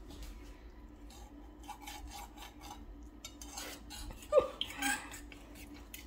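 Knife cutting into a baked ham in its pan: scattered clinks and scrapes of metal on the pan and plate, with a louder clatter and scrape a little past four seconds in, over a faint steady hum.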